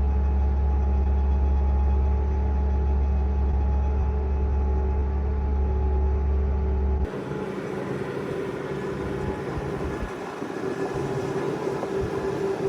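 Bobcat S650 skid steer's diesel engine running steadily under load, a deep steady hum with a constant tone above it. About seven seconds in the sound changes abruptly to a thinner, rougher engine sound with less bass.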